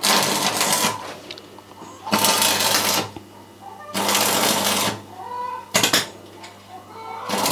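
Stick (electrode) arc welding on steel: short bursts of crackling sizzle, each about a second long, about four times, with a steady low hum between them.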